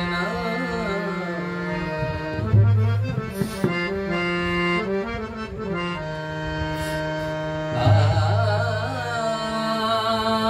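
Bhajan music: a harmonium holding sustained reedy chords and melody, with a voice singing over it, and deep booming pakhawaj (mridang) bass strokes, once about two and a half seconds in and again near eight seconds.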